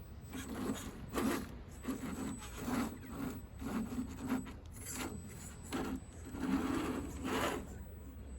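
Electric motor and gears of an RC scale crawler whirring in short, uneven bursts as it is driven with stop-start throttle, with a thin steady high whine underneath.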